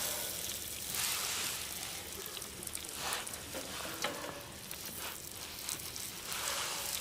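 Wood fire crackling and hissing in a wood-burning grill, with sharp pops scattered through it.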